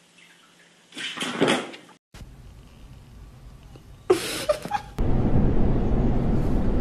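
A brief noisy burst about a second in and a short sharp sound with a pitched part just after four seconds, then from about five seconds on the steady rumble of a subway train car in motion.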